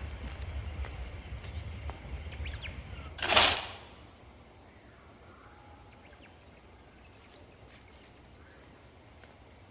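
Film soundtrack ambience: a low rumble, broken a little over three seconds in by a loud, brief rushing swish, after which the sound drops to a quiet background with faint scattered ticks.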